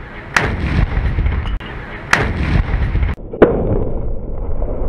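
Ceremonial Iftar cannon firing, the shot that signals sunset and the end of the day's Ramadan fast. Three sharp bangs about a second and a half apart, the last, about three and a half seconds in, the loudest.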